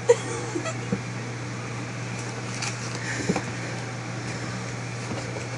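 A steady low hum, with a sharp knock near the start and a few fainter knocks and scrapes on a cardboard drinks box as a cat paws about inside it.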